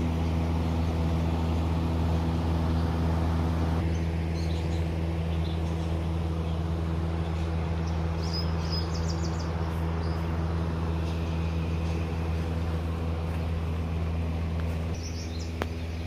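A machine drones steadily with a low, even hum. Birds chirp briefly about eight seconds in and again near the end.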